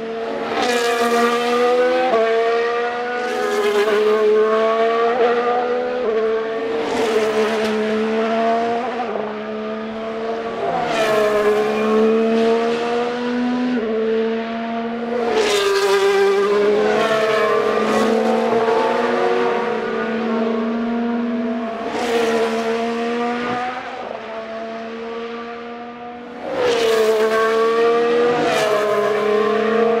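2023 Formula 1 cars' 1.6-litre turbocharged V6 hybrid engines passing through a corner one after another, several in turn. Each engine note falls in pitch as the car slows for the corner, then climbs again as it accelerates away.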